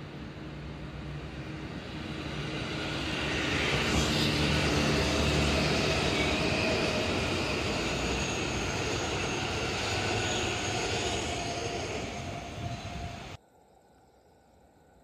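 JR West 221 series coupled with a 223 series electric train passing close by at speed: wheels on rail and motor hum growing louder as it approaches, holding steady as the cars go by, then cut off suddenly near the end.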